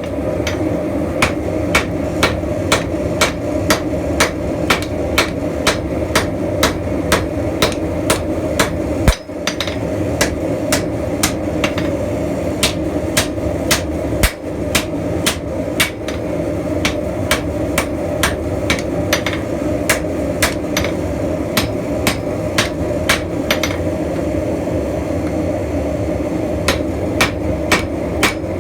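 Hand hammer striking hot leaf-spring steel on an anvil while drawing out a spear point: a steady run of blows, about two or three a second, with a short pause a few seconds before the end. A steady rushing noise runs underneath.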